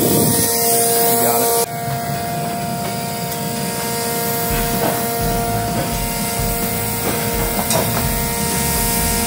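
Energy Logic EL200H waste-oil burner's motor and pump running steadily with a hum and a hiss, kept running without flame while the oil line is bled.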